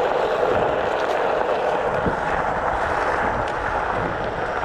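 Onewheel XR rolling along a gravel and dirt trail: a steady rushing noise from its tyre on the gravel, mixed with wind on the microphone.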